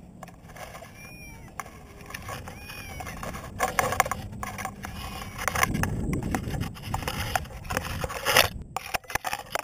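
Close rustling, scraping and clicking as a climber's clothing, gear and a fabric bag rub against tree branches while he handles the cat, louder and rumbling from about halfway through. A few faint short cries are heard in the first half.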